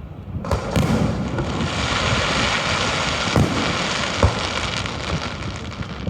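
Aerial fireworks bursting: a sharp bang about half a second in, then several seconds of dense crackling with more bangs about three and four seconds in, dying away near the end.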